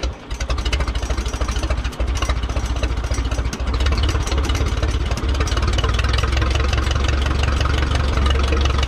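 1957 Case 310 Terratrac crawler loader's gasoline engine running just after starting, a steady low throb of firing pulses, with a few brief dips in level in the first five seconds.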